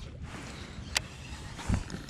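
Baitcasting rod and reel being handled on a kayak: one sharp click about a second in, then a dull, deep thump near the end, over a low background rumble.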